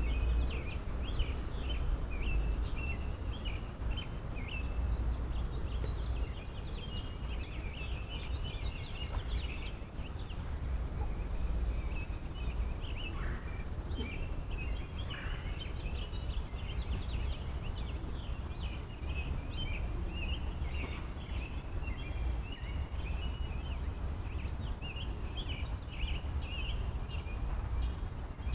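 Small birds chirping, a dense, continuous chatter of short high notes that thins out briefly about a third of the way in, over a constant low rumble.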